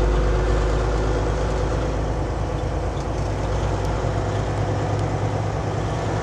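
Semi-truck engine and road noise heard from inside the cab: a steady low drone while rolling along the highway, easing a little in the second half.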